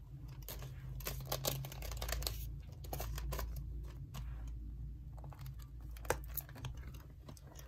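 Paper banknotes and plastic budget-binder envelopes being handled during cash stuffing: light rustling with scattered small clicks, over a steady low hum.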